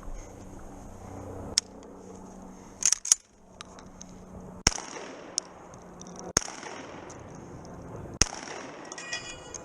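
Shotgun fired several times in a stage run, sharp single shots about every second and a half.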